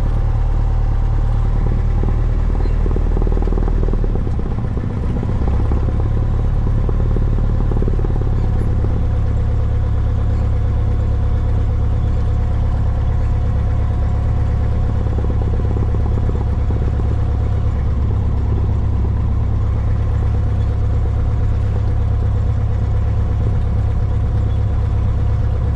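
Cessna 172's piston engine and propeller running steadily at taxi power, heard from inside the cockpit. The engine note dips briefly about five seconds in.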